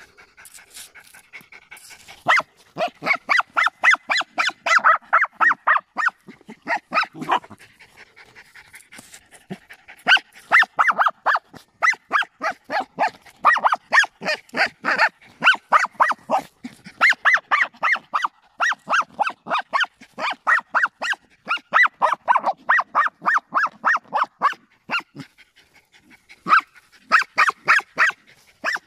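Small dog yapping in rapid runs of short barks, several a second, broken by brief pauses, as it digs after an armadillo holed up in its burrow.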